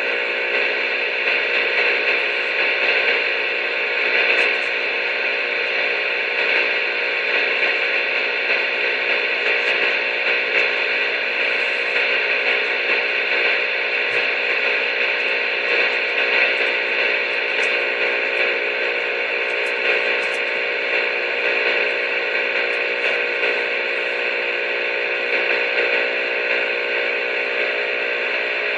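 A steady, unchanging hiss with several faint steady tones under it.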